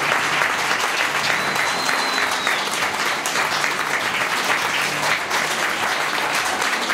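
Theatre audience applauding at a curtain call: dense, steady clapping, with a brief high whistle over it about a second and a half in.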